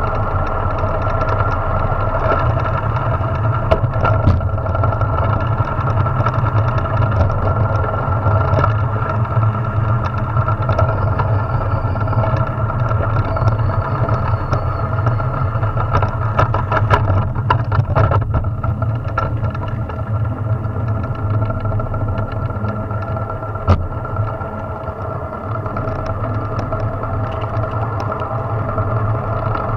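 Drift trike rolling over asphalt, a steady rough rumbling drone from the wheels on the road, with rattling clicks from the frame over bumps and one sharp knock a little before the end.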